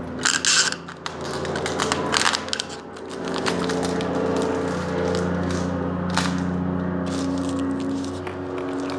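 Florist's wrapping paper crinkling and crackling as a sheet is handled, loudest in the first few seconds, with scattered sharp crackles later. A steady low hum of several held tones comes in about three seconds in.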